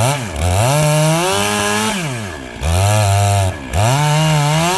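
Chainsaw engine revved up to full throttle and held, dropping back toward idle between, three times.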